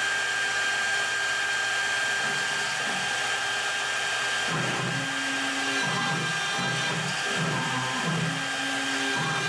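CNC router spindle running with a steady high whine as its bit starts to carve into a plywood board. From about four and a half seconds in, lower tones come and go and shift in pitch every half second or so as the machine's axes move through the cut.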